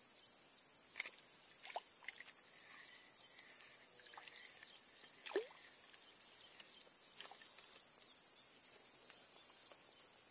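Steady high-pitched insect chorus, with a few faint clicks and a short falling chirp about five seconds in.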